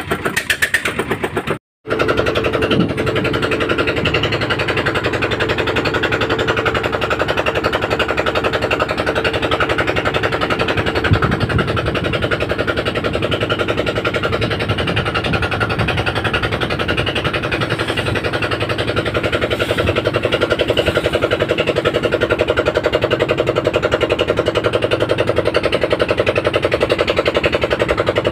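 Small wooden river ferry's inboard engine running steadily under way, a fast, even chugging of rapid pulses over a steady hum. The sound drops out for an instant about two seconds in.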